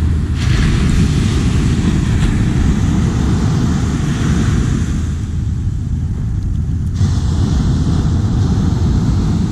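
Steady wind buffeting the microphone over the rush of surf breaking on a sandy beach.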